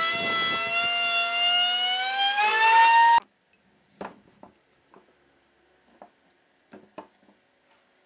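High-pitched whine of a woodworking power tool's motor, steady and then rising in pitch before cutting off suddenly about three seconds in. A few faint knocks follow.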